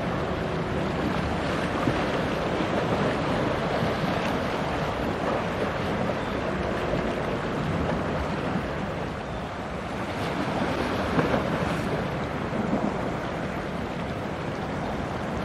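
Wind blowing on the microphone over the wash of choppy sea water, a steady rushing noise with a few brief gusts.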